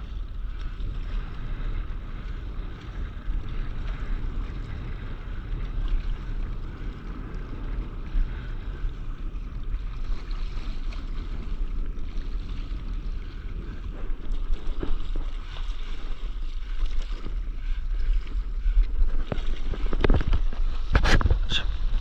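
Water sloshing around a stand-up paddleboard with wind buffeting the microphone; near the end a quick series of sharp splashes as the paddle digs in hard.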